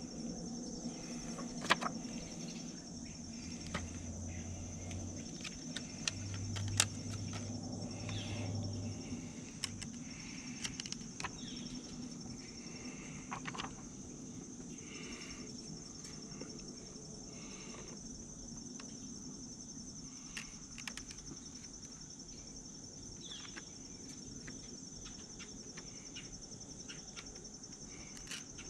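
Crickets chirping in a steady high-pitched trill, with scattered light clicks and a low hum for a few seconds early on.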